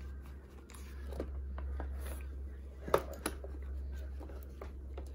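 Rubber-gloved hands handling a leather handbag: rustling and rubbing of the leather with a few small clicks, the sharpest about three seconds in, over a steady low hum.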